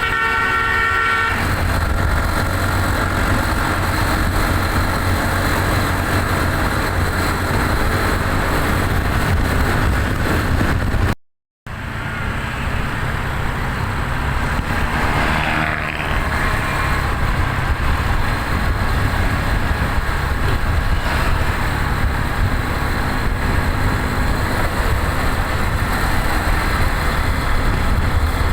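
Steady motor-vehicle engine and road rumble, with the last notes of a musical telolet bus horn dying away about a second in. The sound cuts out completely for about half a second near the middle.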